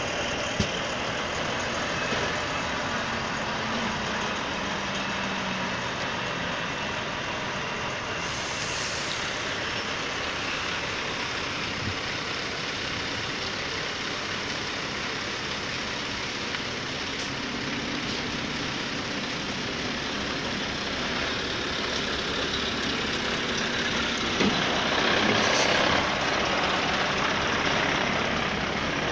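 Heavy truck's diesel engine running steadily, growing a little louder near the end, with two short hisses, about eight seconds in and again near the end.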